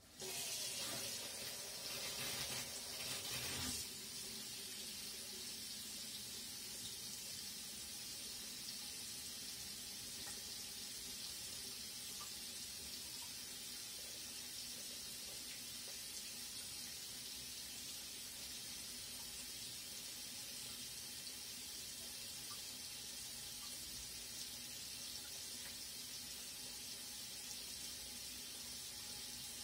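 Kitchen mixer tap turned on and running into a stainless steel sink stacked with dishes, the stream splashing over a metal citrus juicer and plates as the sink fills with sudsy water. The splashing is louder and more uneven for the first few seconds, then settles into a steady rush.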